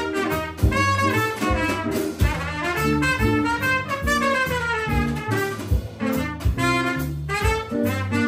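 Live jazz combo playing: a trumpet plays the lead line over upright bass, drum kit and electric guitar.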